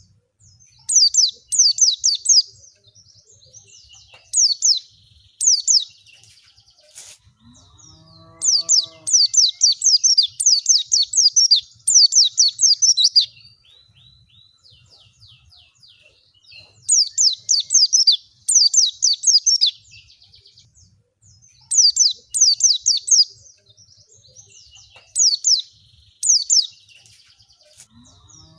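White-eyes (pleci) singing in repeated bursts of quick, high chirps, each burst falling in pitch and lasting a second or two, with short pauses between. A short low call with a steady pitch sounds once, about eight seconds in.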